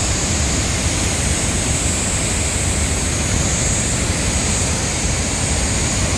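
Large waterfall: falling water rushing steadily, with a strong low rumble.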